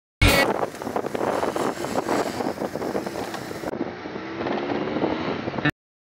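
Motorcycle on the road with wind buffeting the microphone; after a cut partway through, the engine note rises as the bike accelerates.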